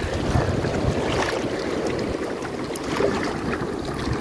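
Sea surf washing and splashing around people standing in the water, a continuous rushing and crackling wash.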